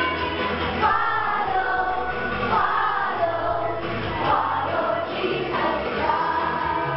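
A group of children singing a praise song together, along with recorded backing music that has a steady bass beat.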